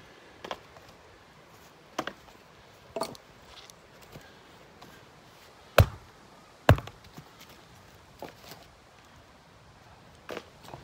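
Long-handled axe chopping thin boards of wood lying on the ground: a series of about eight sharp chops, the two loudest close together a little past the middle.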